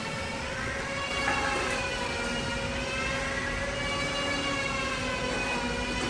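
Large horizontal band sawmill running: a steady hum with a whine that slowly wavers up and down in pitch.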